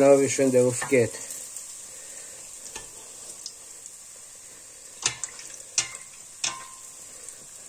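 Langos dough deep-frying in a pot of hot sunflower oil, a steady sizzle. A few sharp clicks come in the second half.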